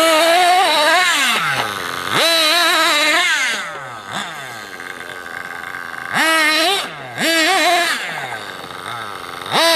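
Nitro RC buggy's small glow-fuel engine revving hard in short bursts of throttle: each time the pitch shoots up to a high whine, holds briefly, then falls away as the throttle comes off. It does this about five times, dropping back toward idle in between.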